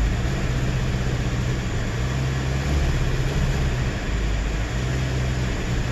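2010 Toyota Corolla S four-cylinder engine held at full throttle and running rough, missing on cylinder 4. The miss comes from a damaged spark plug.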